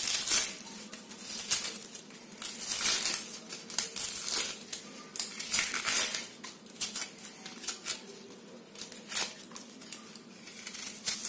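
Dry papery skin being peeled and scraped off a red onion with a kitchen knife: irregular crinkling rustles and scrapes, coming in quick clusters.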